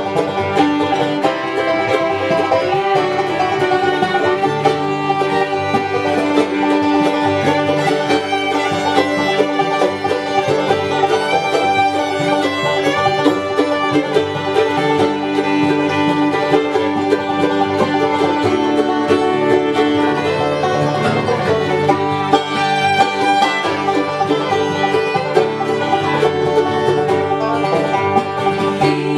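Bluegrass-style instrumental music with banjo and fiddle.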